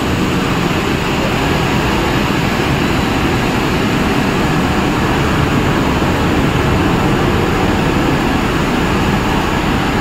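Snack-pellet production line machinery running: electric motors, a blower fan and a conveyor make a loud, steady, unbroken noise.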